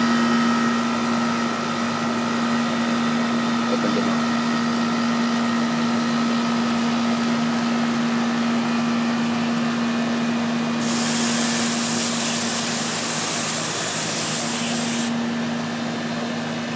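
Outdoor air-conditioning condenser running, its old reciprocating compressor humming steadily while pumping the refrigerant down. From about eleven seconds in, a loud hiss of refrigerant gas at the gauge manifold and hoses lasts about four seconds and cuts off abruptly.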